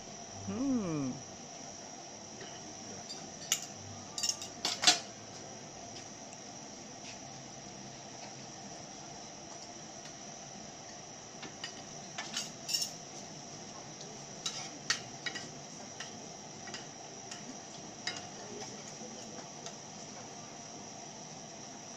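Fork and spoon clinking and scraping against a copper crêpe pan on a tableside burner, in scattered groups of sharp clinks, the loudest about five seconds in, over a steady high chirring of crickets.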